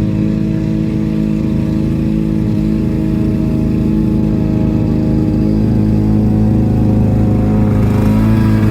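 Lawn mower engine running steadily under load, with a slight change in its note near the end.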